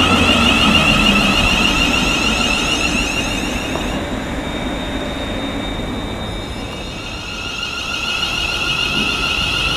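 Class 350 Desiro electric multiple unit running, with a high-pitched traction whine over wheel-on-rail rumble that fades out about four seconds in. After a quieter stretch, another unit's whine builds again as it approaches near the end.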